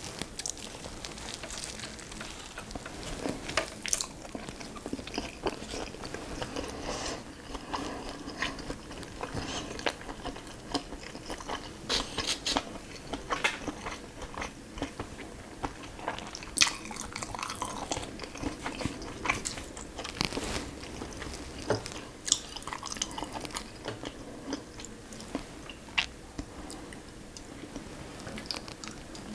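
Close-miked eating: biting into and chewing food, with many sharp, irregular wet clicks and crunches.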